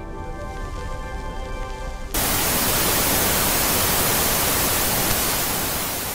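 Television-static hiss sound effect: a loud, even hiss that starts suddenly about two seconds in and runs on to the end. Before it, the last sustained notes of a keyboard tune fade under a low rumble.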